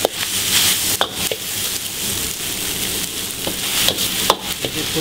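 Pad Thai noodles stir-frying in a hot wok with a steady sizzle. A metal ladle scrapes and knocks against the wok several times, around the start, about a second in and near the end.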